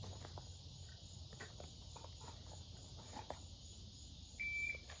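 Shot timer's start beep: one short, steady high tone near the end, the signal to begin a timed draw. A few faint clicks come before it.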